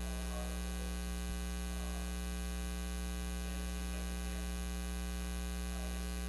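Steady electrical mains hum, a low drone with a ladder of higher tones above it, running at an even level.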